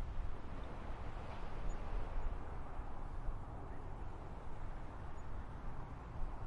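Seaside ambience heard from the shore facing inland: a steady wash of distant noise with an unsteady low rumble underneath, and no single event standing out.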